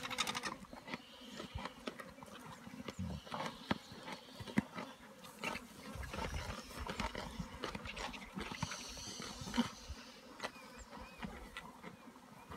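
Spotted hyenas and white-backed vultures feeding on a giraffe carcass: a stream of short clicks and crunches from the feeding, with flies buzzing around the carcass, louder about two-thirds of the way through.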